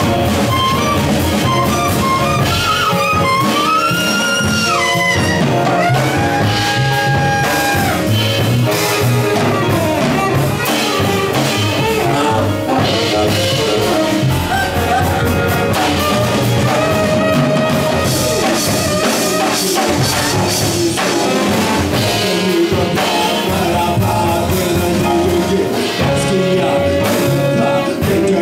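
Live jazz: a tenor saxophone plays a winding solo line over upright bass and a drum kit.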